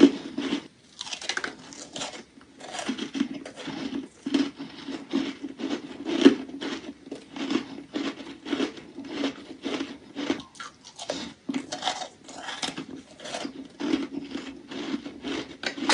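A person biting and chewing thin chunks of crunchy ice, with a steady run of crisp crunches about two a second.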